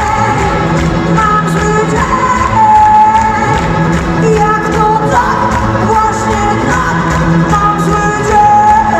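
Live pop-rock band playing: a woman singing long held notes into a microphone over drums, electric guitar and keyboards, heard from within the crowd in a hall.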